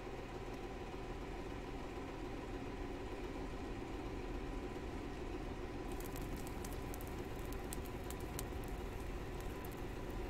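Low, steady rumbling drone from the music video's outro soundtrack, joined about six seconds in by faint scattered crackling.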